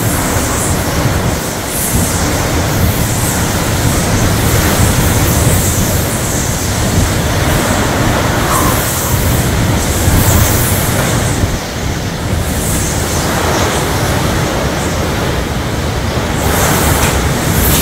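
Hurricane Ian's wind blowing in strong gusts with heavy rain, buffeting the microphone with a deep low rumble that surges and eases every few seconds.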